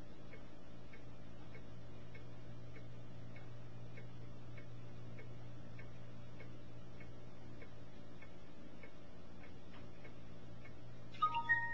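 A steady low hum with faint, regular ticking, about two ticks a second. Just before the end come a few short, high beeps at different pitches.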